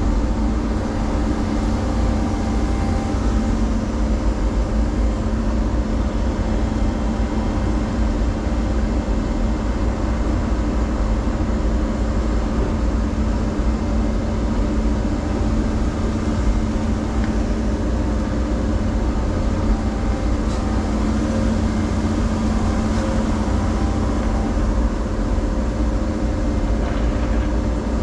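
Caterpillar 335 Next Gen excavator's diesel engine and hydraulics running steadily at working speed: a deep rumble with a steady whine over it. There are a few faint knocks near the end.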